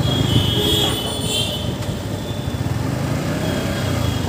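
Yamaha MT-15's single-cylinder engine running at low speed through street traffic, with a brief high-pitched tone about a second in.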